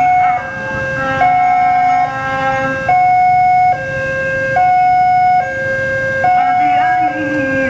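Railway level-crossing warning alarm: an electronic two-tone signal alternating evenly between a higher and a lower tone, each held a little under a second. It sounds while the barriers are down and a train is approaching.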